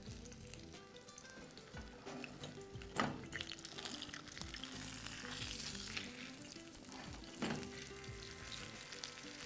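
Oil sizzling steadily as breaded chicken breasts (cordon bleu) shallow-fry in a pan, with a metal pasta server stirring a cream sauce in a stainless saucepan. There are two sharper clinks of the utensil on the pan, about three seconds in and again later.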